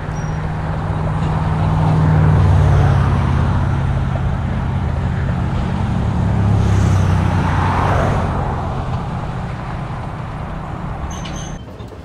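Durango & Silverton narrow-gauge train running, heard from on board: a steady low drone with the rush of motion over it. It swells twice and drops off sharply just before the end.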